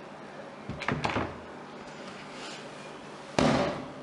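A door knocking twice lightly about a second in, then slamming shut with a loud bang near the end.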